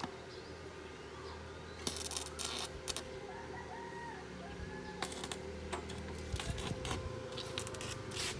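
A rooster crowing over a steady low hum, with short bursts of clattering knocks about two seconds in and again about five seconds in.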